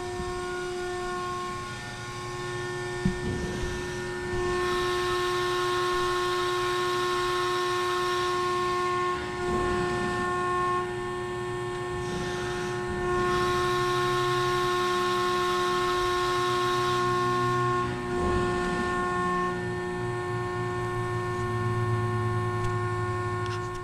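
Hydraulic pump of a 190-ton CNC press brake running with a steady whine, switched on and ready to bend. Twice, from about five seconds in and again after about thirteen seconds, a louder hissing joins it for four to five seconds.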